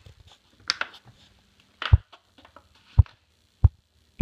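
Dull low thumps, about one a second from about two seconds in, with light rustling and a brief crackle before them: handling noise from a hand-held phone camera.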